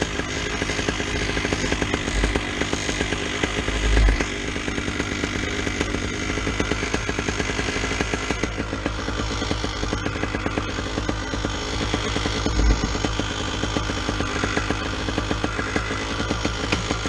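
Paramotor trike's Vittorazi Moster single-cylinder two-stroke engine running steadily on the ground, with a couple of brief low thumps about four and thirteen seconds in.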